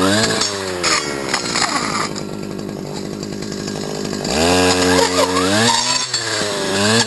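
STIHL FS250 brushcutter's two-stroke engine being revved: its pitch drops back to a low steady run for a few seconds, then climbs sharply on the throttle and falls and rises again.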